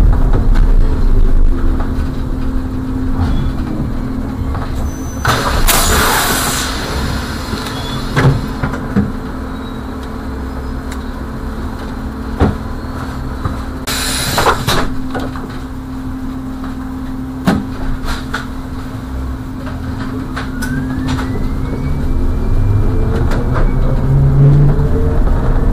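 A bus running slowly in city traffic: a steady hum over road rumble, with scattered clicks. Two loud hisses of air come about 6 and 14 seconds in, and a rising whine near the end as it speeds up.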